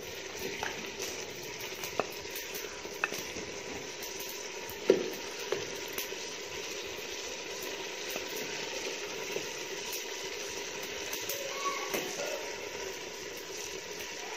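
Chicken and potato curry sizzling and simmering in a steel pot over a wood fire, a steady hiss, with a few sharp clinks of a metal ladle against the pot, the loudest about five seconds in.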